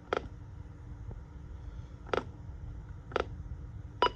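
Four short, sharp clicks at uneven intervals over a low, steady background hum.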